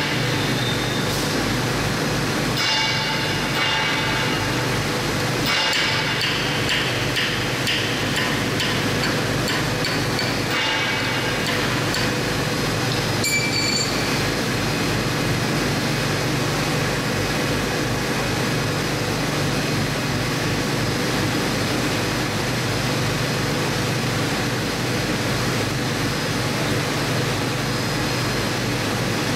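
A hammer striking a steel chisel held against the hub nut of a pulverizer grinding disc, giving a few sharp ringing metallic blows in the first half. A steady workshop hum runs underneath.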